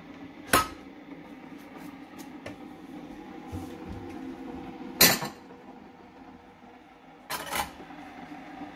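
Sharp knocks and clinks of a glass cup being handled and set down on a Philips Senseo coffee machine's drip tray. There are three, the loudest about five seconds in and a double knock near the end, over a faint steady hum.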